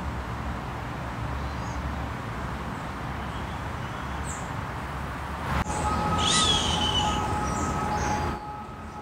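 Steady low outdoor rumble, with a short high-pitched sound about six seconds in and two steady whistling tones after it.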